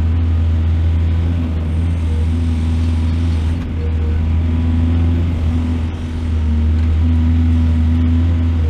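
Heavy excavator's diesel engine running steadily with a deep drone, easing off briefly twice.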